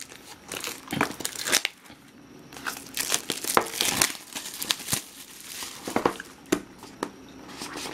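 Clear plastic wrapping being torn and crinkled as it is pulled off a cardboard retail box, in irregular rustling, crackling spurts.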